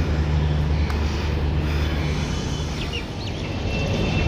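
Outdoor ambience: a steady low hum of road traffic that fades about two and a half seconds in, with a few short bird chirps about three seconds in.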